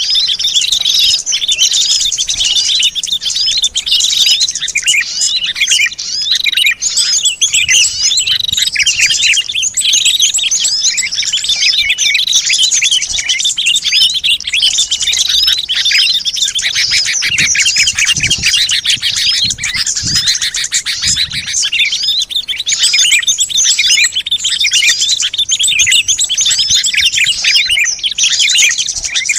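Dense, continuous chorus of many small songbirds chirping and twittering rapidly over one another. It is a bird-lure recording, played to call wild birds in.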